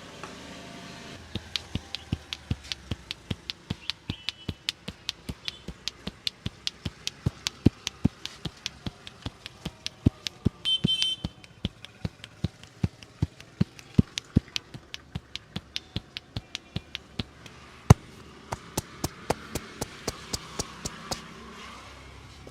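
Percussive head massage: hands striking the head in a steady rhythm of sharp slaps, about three or four a second, with a quick flurry about halfway through and one louder single strike later on.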